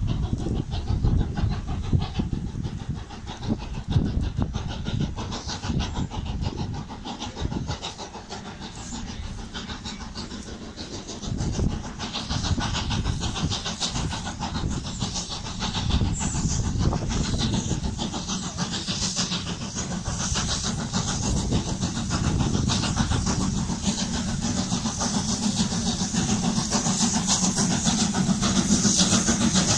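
A USATC S160 2-8-0 steam locomotive approaching under steam. Its working exhaust grows steadily louder through the second half as it nears.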